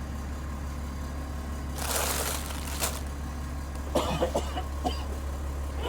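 A big truck's engine idling, a steady low hum. About two seconds in comes a brief rustling hiss, and a short voice sound follows about four seconds in.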